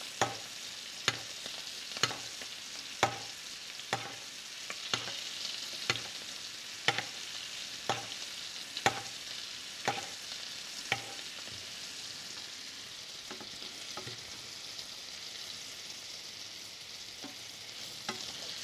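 Scallops searing in butter in a frying pan, a steady sizzle. A spoon clinks against the pan about once a second for the first eleven seconds or so as the butter is basted over them, then only now and then.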